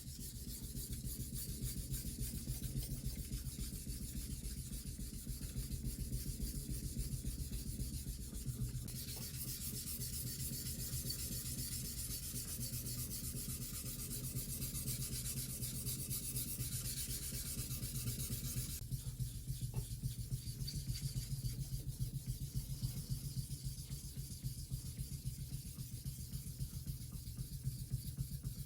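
Kitchen knife blade being stroked back and forth on a sharpening stone, a continuous rhythmic scraping that turns brighter and hissier from about nine seconds in until about nineteen seconds.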